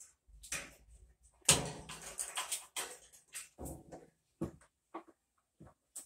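Irregular knocks, clunks and scrapes as hands work around the tub of a Whirlpool top-load washer, the loudest clunk about one and a half seconds in.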